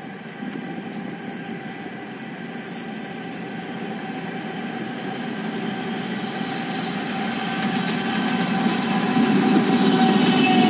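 2M62M twin-section diesel locomotive hauling a freight train, its engines running with a steady tone and growing steadily louder as it approaches. Wheel and rail clatter builds in over the last few seconds as the locomotive passes close by.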